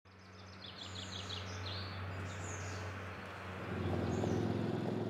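Small birds chirping and singing for the first couple of seconds, then about three and a half seconds in a quad bike's engine comes in and runs steadily as the loudest sound.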